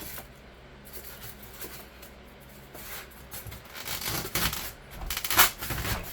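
Rigid foam insulation board rubbing and scraping as pieces are handled and wedged into a garage door panel: a few scratchy strokes in the second half, the loudest a little past five seconds in.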